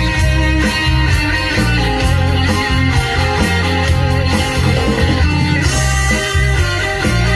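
Band music without vocals: electric guitar playing over a steady bass guitar line.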